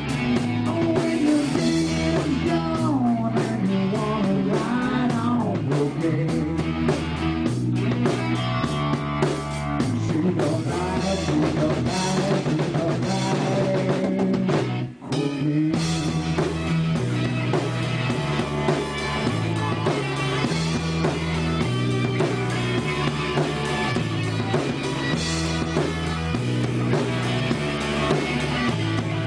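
Rock band playing live: electric guitars over a drum kit keeping a steady beat, with a singer's voice at times. The music breaks off for a moment about halfway, then carries on.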